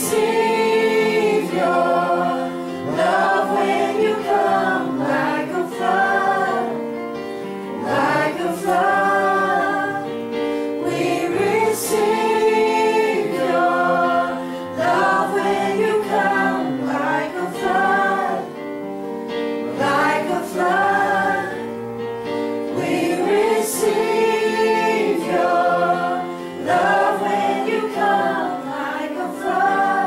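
Group of voices singing a slow gospel worship song together in long phrases, over steady held instrumental chords.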